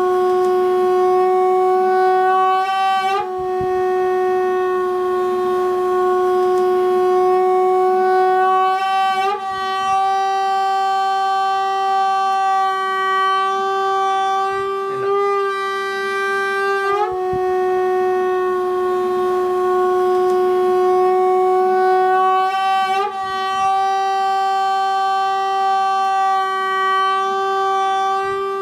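Homemade balloon-membrane straw horn being blown, giving a steady buzzing horn-like tone that breaks off and resumes every few seconds. The stretched balloon vibrates to make the sound.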